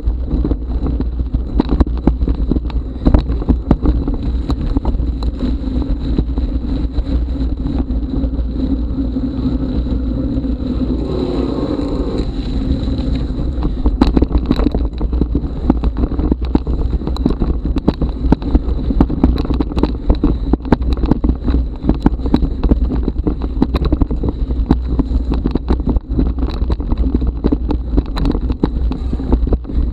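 Mountain bike descending a rough dirt forest trail, heard through an action camera's microphone: wind buffeting the mic, with the bike rattling and knocking over bumps and roots throughout. A brief wavering whine sounds about ten seconds in.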